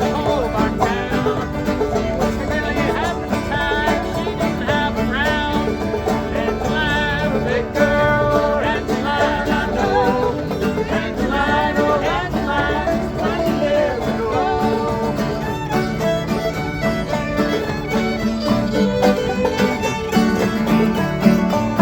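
Upbeat bluegrass music: a fast-picked banjo with a fiddle playing the melody over it.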